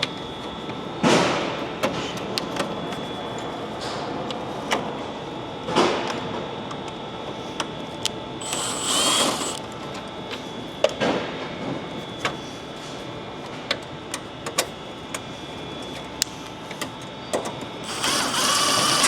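Screws and hand tools at work as a truck's grille is fastened back on: scattered clicks and taps of metal and plastic, with a few brief, longer bursts of tool noise.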